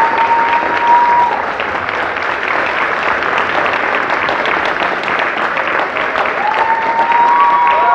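Audience applauding steadily: a dense patter of many hands clapping. A long held cheer rises above it at the start, and another near the end.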